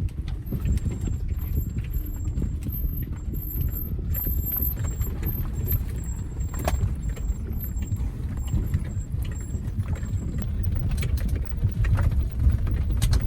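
A 2007 Nissan X-Trail (T30) driving down a rough off-road track: a steady low rumble with scattered knocks and rattles.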